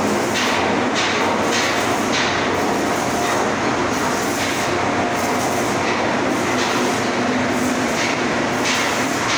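Steady, even noise of pipe welding work inside a ship's steel tank, continuous and without pauses.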